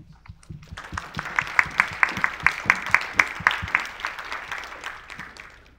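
Audience applauding in a hall, with one pair of hands clapping close by at a steady beat of about five claps a second. The applause builds within the first second and fades out near the end.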